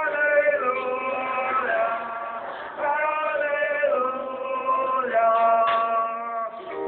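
A church congregation singing a hymn in long held notes, with one man's voice belting it out loudly above the rest.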